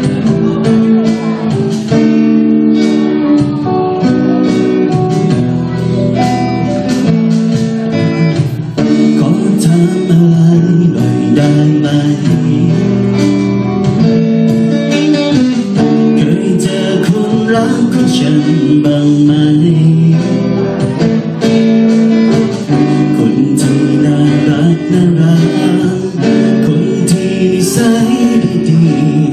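Live band playing a song: electric guitar and drum kit, with a man singing into a microphone.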